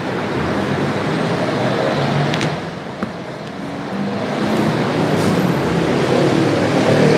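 Road traffic: a steady wash of vehicle noise with an engine hum that swells, dips and swells again, and a light click about three seconds in.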